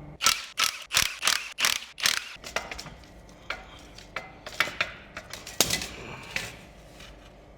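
Metal hand tools clicking and clanking on the clutch bolts of a Mazda 13B rotary engine as it is unbolted. There are about seven quick sharp clacks in the first couple of seconds, then scattered single clicks.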